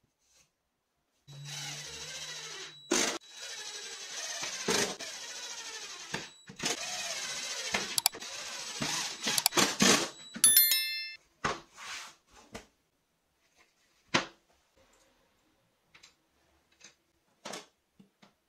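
20V cordless drill boring into a wooden board in several runs, its motor speed rising and falling with the trigger, with short pauses between runs. A brief run of high electronic tones follows, then scattered light knocks and clicks of tools and wood being handled.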